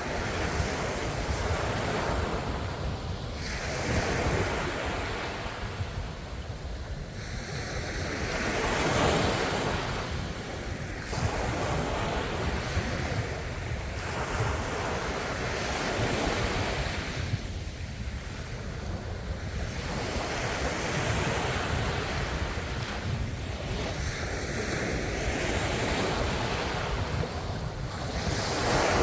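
Ocean waves breaking and washing ashore, the surf swelling and easing every few seconds, with wind rumbling on the microphone.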